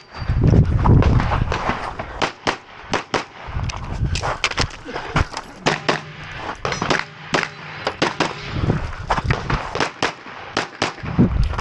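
Glock 34 9mm pistol firing many quick shots, often in fast pairs and short strings with brief gaps, as the shooter runs a USPSA course of fire. A low rumble sits under the shots at times.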